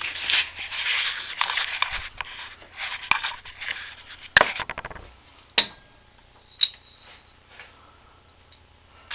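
Hand work on the moped's clutch and variator parts: scraping and rustling, a sharp click, then a loud clack about four and a half seconds in, followed by a couple of lighter knocks and clicks.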